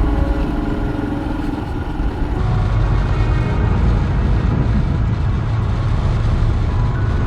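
Steady low rumble of a road vehicle driving, with faint music running under it.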